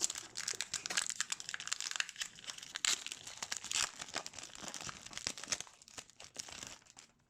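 A 2019-20 MVP hockey card pack's wrapper crinkling and tearing as it is handled and ripped open, a dense crackle that thins out near the end.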